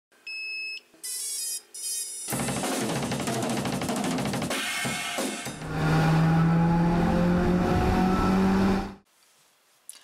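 Intro music: a few short electronic tones, then drums and cymbals joined by a loud held low note, cutting off sharply about a second before the end.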